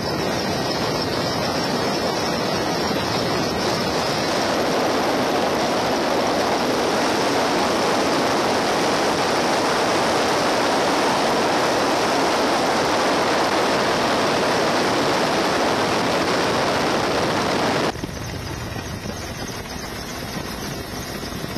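Steady rushing helicopter cabin noise, turbine and rotor wash mixed with wind over the microphone. It grows brighter about four seconds in and turns abruptly duller and quieter near the end.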